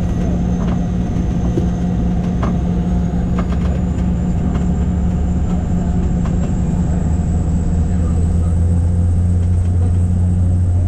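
Small aircraft's engine running steadily, with a deep hum, a high thin whine that rises slightly about three seconds in, and light rattles. The low hum grows stronger near the end.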